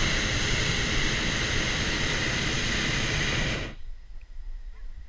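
Hot air balloon's propane burner firing in one long, steady blast that cuts off suddenly a little under four seconds in.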